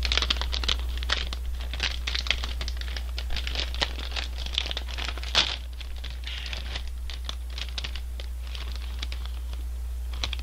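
A plastic potato-snack bag (Honey Tong Tong strawberry) crinkling and tearing as it is pulled open by hand, with dense crackles in the first half, a sharp one about five seconds in, then lighter handling.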